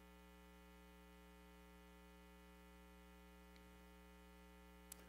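Near silence with a faint, steady electrical mains hum, and a small click just before the end.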